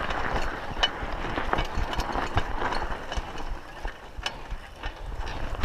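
Raleigh Ascent mountain bike ridden over a sandy dirt track: the tyres hiss through loose sand, with scattered clicks and rattles from the bike. Under it runs a low rumble of wind on the microphone.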